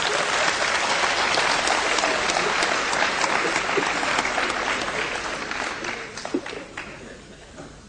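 Theatre audience applauding, the clapping fading away near the end.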